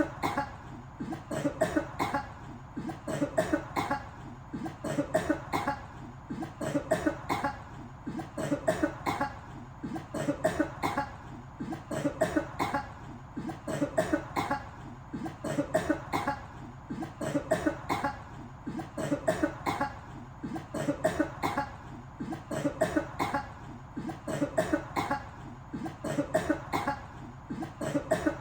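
A person coughing over and over in short runs of several sharp coughs. The runs repeat evenly, roughly one a second.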